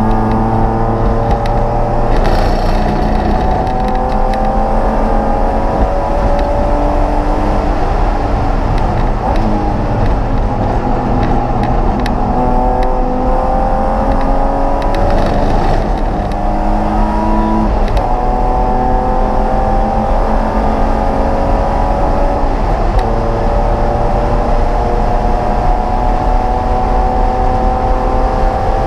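Race car engine heard from inside the stripped, roll-caged cabin, running hard under full throttle. Its pitch climbs, then drops suddenly at each upshift, and it falls away once about ten seconds in as the car slows for a corner.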